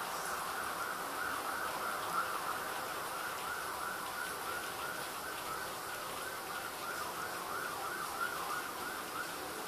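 A siren wailing in a fast yelp, its pitch rising and falling rapidly over and over.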